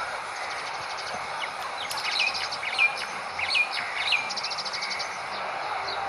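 Asian pied starlings calling at the nest: several short chirps that drop in pitch, and two quick rattling trains of ticks, over a steady background hiss.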